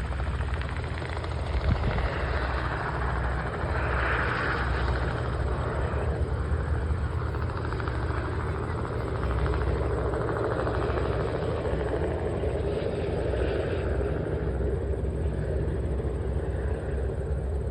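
Helicopter running steadily, a continuous low rumble with a wide rushing noise over it.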